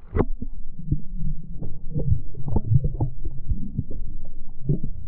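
Muffled underwater sound picked up by a camera held below the lake's surface: a low rumble of moving water with a run of dull knocks and clicks as a hand stirs the water beside a largemouth bass.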